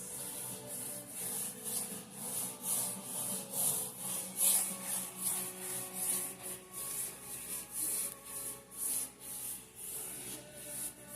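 Brush stroking varnish across an oil painting on canvas: a rhythmic brushing swish, about two strokes a second, over soft background music.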